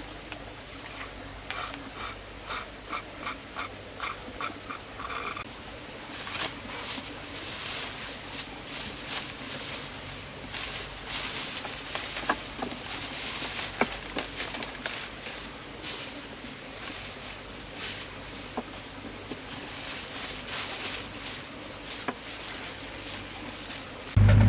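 Outdoor rural ambience: a steady high-pitched insect drone, with scattered clicks and knocks. In the first few seconds there is a short run of repeated chirps, about two a second. A loud low engine drone cuts in abruptly at the very end.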